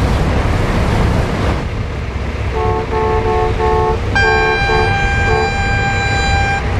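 Ship horns sounding on the water: from about two and a half seconds in, one horn gives a string of short blasts, and about four seconds in a second, higher horn joins in one long blast while the short blasts go on. Under them runs a steady low rumble.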